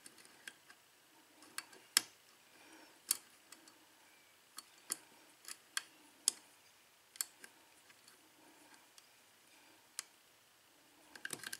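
Faint, irregular metallic clicks and ticks of a hook pick working the pin stacks of a Kwikset-keyway Ilco KIK lock cylinder under light tension, about a dozen spread out with a small cluster near the end. No pin sets on this pass.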